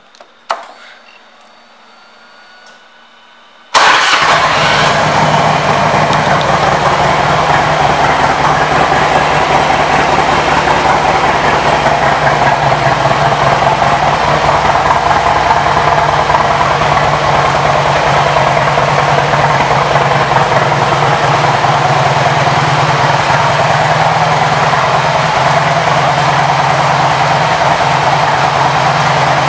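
A 2005 Harley-Davidson Road King Classic's Twin Cam 88 V-twin, fitted with a 2-into-1 Screaming Eagle exhaust, comes in abruptly about four seconds in and then idles steadily without revving. Before that there are only a faint click and low room noise.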